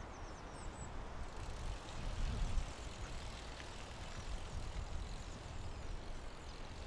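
Steady low outdoor rumble with slow swells in loudness, and a few faint, high, thin bird calls in the first second.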